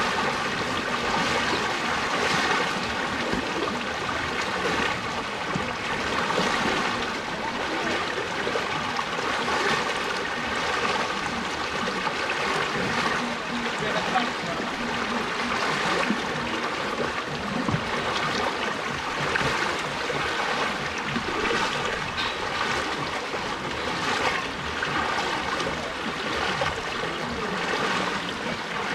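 Floodwater rushing steadily across a road.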